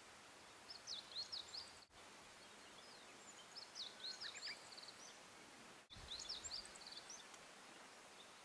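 A small songbird singing three short phrases of quick, sweeping high notes, a couple of seconds apart, over a faint steady outdoor hiss.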